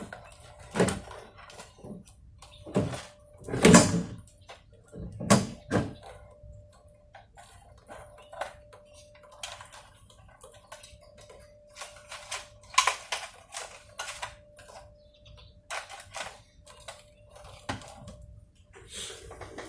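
Irregular clicks, taps and knocks of small hard objects being handled, with the loudest knocks in the first six seconds and again around the middle. A faint steady high tone runs underneath.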